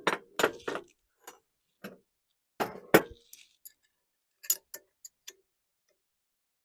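Irregular light metallic clicks and clinks, about a dozen, from working a tube bender and steel hydraulic tubing; the sharpest one comes about three seconds in.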